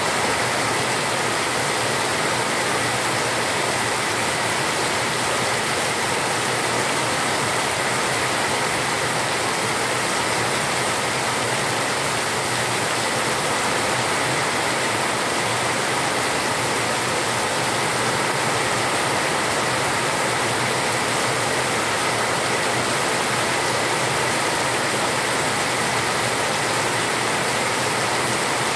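Heavy rain falling on a concrete yard: a steady, unbroken hiss of the downpour.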